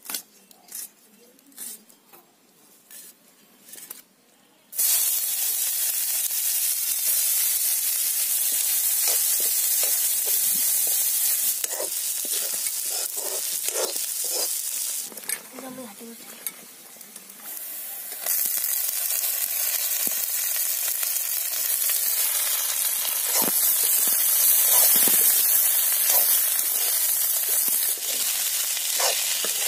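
A few seconds of light clicks from garlic cloves being peeled, then loud, steady sizzling of sliced onions and green bell pepper frying in hot oil in a metal kadai. The sizzle drops for a few seconds in the middle and comes back strongly, with occasional knocks and scrapes of a metal spatula stirring the pan.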